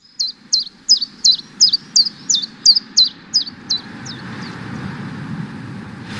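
A bird chirping rapidly, short high falling chirps about three a second, fading out after about four seconds. Underneath is a steady low rushing ambience that slowly grows louder.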